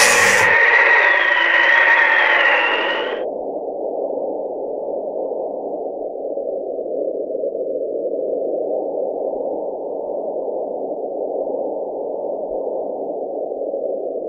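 Steady, muffled rushing noise with no pitch. For about the first three seconds a denser layer with a high, wavering tone sits on top of it, then cuts off suddenly.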